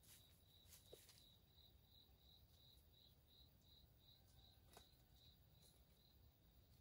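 Near silence, with faint insect chirping: one high note repeated evenly about three times a second that stops near the end. A couple of faint ticks are also heard.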